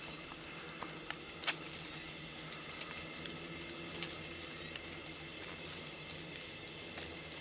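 Steady buzzing hiss of a swarm of beetles flying around and feeding in a mango tree at night, over the steady trilling of night insects, with one sharp click about one and a half seconds in.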